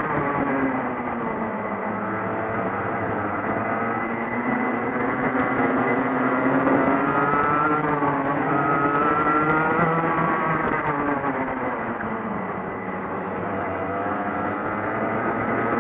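Racing kart engines heard onboard in a close pack. The kart's own engine note drops and climbs several times as the driver lifts into corners and accelerates out, with the engines of the surrounding karts running alongside.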